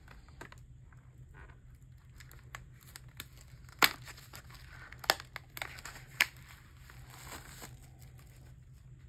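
Album packaging being opened and handled: crinkling and tearing, with three sharp snaps about four, five and six seconds in.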